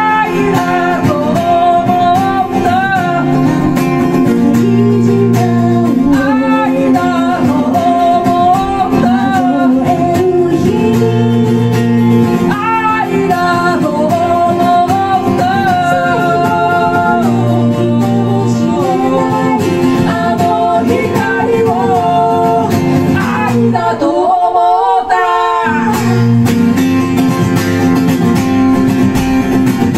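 Live song: a steel-string acoustic guitar strummed with singing into microphones, two voices at times. About three-quarters of the way through, the guitar stops for a moment while the voice carries on, then comes back in.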